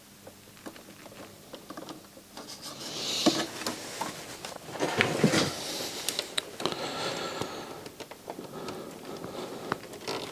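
Irregular scraping, rustling and small clicks of hands working a cable back into a circuit-board connector. It is quiet for the first couple of seconds, then gets busier, with the loudest scrapes about three and five seconds in.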